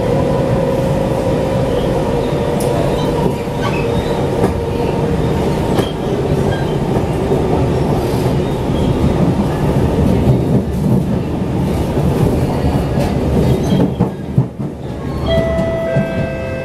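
Siemens C651 metro train running at speed on elevated track, heard from inside the carriage: a steady rumble of wheels on the rails with a faint whine and occasional clicks. Near the end a few steady tones come in.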